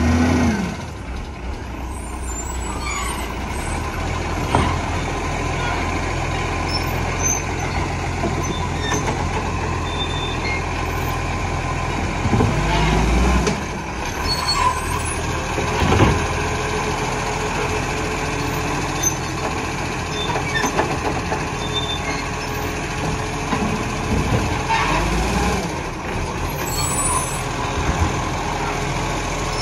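Iveco ACCO side-loader garbage truck running as it pulls up to the kerbside bins, with a few short air-brake hisses. Near the end its hydraulic side arm grips and starts lifting a wheelie bin.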